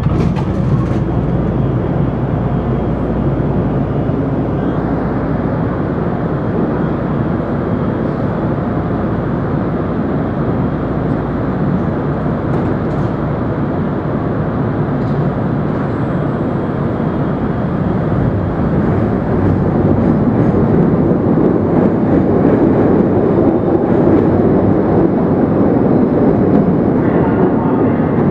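Chicago 'L' elevated rapid-transit train noise: a steady rumble with a low hum, growing louder in the second half as a train rolls into the elevated station.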